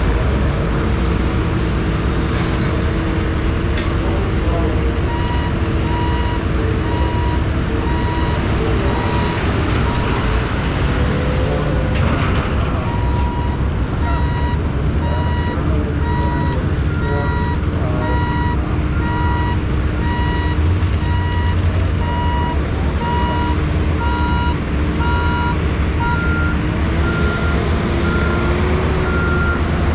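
Heavy vehicle engines running steadily with a low rumble, while a reversing alarm beeps at an even pace from a few seconds in. A second, higher-pitched reversing alarm joins past the middle.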